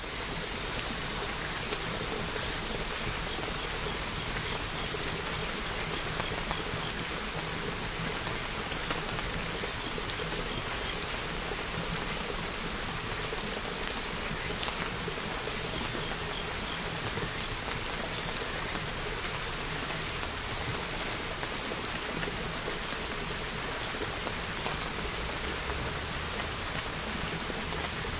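Steady rain falling, an even continuous hiss with no let-up.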